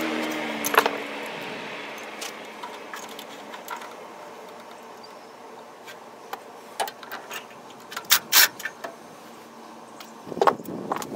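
Irregular metallic clinks and taps of hand tools against a steel gear puller fitted to the crankshaft timing gear of a Ford 4.9-litre inline-six engine. The loudest clinks come about eight and ten seconds in.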